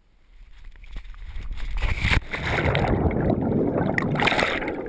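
A jump from a tree into water: a rising rush of air over the microphone during the fall, a splash about two seconds in, then loud churning and bubbling water around the submerged camera.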